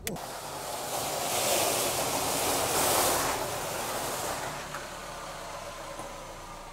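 Car rolling up a gravel and cobblestone driveway, its tyres crunching on the stones: the noise swells over the first three seconds, then fades as the car slows.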